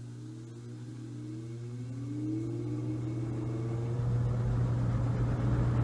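1950s Roto-Aire 07104 seven-wing box fan starting up on low speed: a steady motor hum, with several tones rising in pitch as the blade spins up and levelling off about four seconds in, while the rush of air grows louder.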